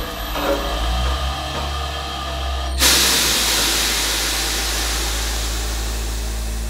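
Hydraulic press brake running: its pump motor gives a steady low hum, joined about three seconds in by a loud, steady hiss that starts suddenly.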